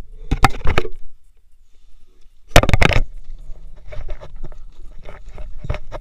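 Backpack being handled and pushed through a narrow rock gap: two loud bursts of rustling and scraping, about half a second in and again near the three-second mark, then lighter scrapes and rustles.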